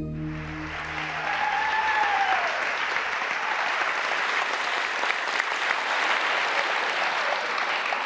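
Audience applauding steadily as performers take the stage, with the tail of a soft musical intro fading out over the first few seconds and one brief cheer rising and falling about a second and a half in.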